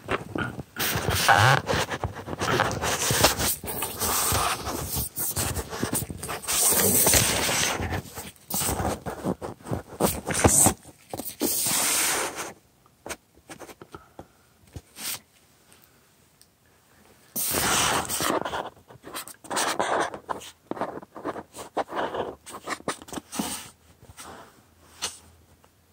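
Rustling and scraping handling noise of a phone camera being picked up, moved and set down on a desk. It comes in long stretches at first and again about two-thirds of the way through, with scattered clicks and knocks between and near the end.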